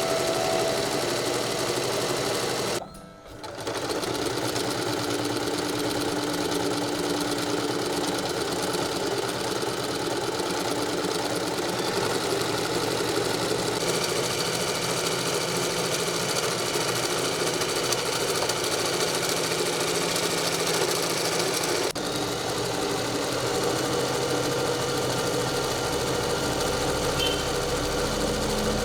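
Usha Janome Allure DLX electric sewing machine running steadily. It stops briefly about three seconds in, then runs on.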